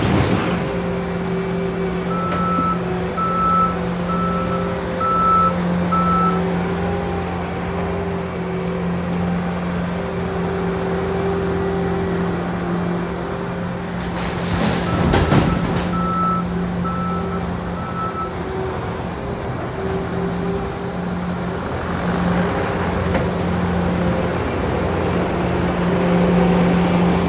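Diesel heavy construction equipment running steadily, with a reversing alarm beeping in short runs, and a brief loud crash about halfway through.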